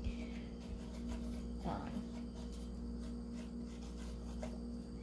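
A steady low hum, with a faint short scuffing sound nearly two seconds in.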